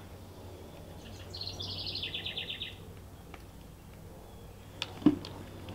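A bird's fast trill of about a dozen notes over roughly a second and a half, dropping slightly in pitch, against faint outdoor ambience. A single sharp click comes near the end.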